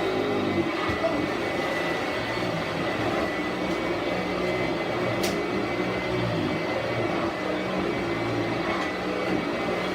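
Sanitaire SC684 commercial upright vacuum cleaner running steadily at full speed with a high motor whine, just after being switched on. There is a single sharp click about five seconds in.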